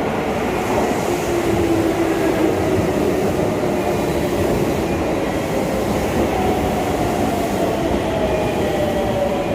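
Keisei electric commuter train pulling into the platform, its running noise loud and steady, with a motor whine falling slowly in pitch as it slows to a stop.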